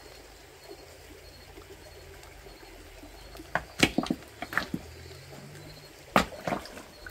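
Creek water running steadily, with several sharp knocks from about halfway through and a couple more near the end as river stones are lifted and shifted by hand.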